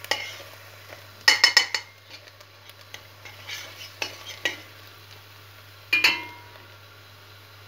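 A metal spoon scraping and clinking against a stainless steel pot while stirring onion and tomato paste frying in butter, with a faint sizzle underneath. There is a quick run of clinks about a second and a half in, a few single ones later, and the loudest strike comes near the end with a brief ring.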